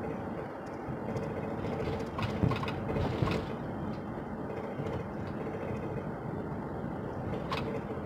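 Road and engine noise inside a moving car's cabin: a steady rumble of tyres and engine, with two short knocks about two and a half and three seconds in.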